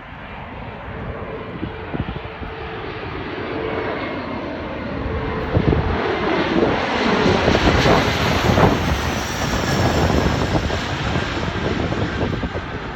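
A Bombardier CRJ-700 regional jet on landing approach passes low overhead on its two turbofan engines. The roar grows louder and is loudest about eight seconds in. The engine whine falls in pitch as the jet goes by.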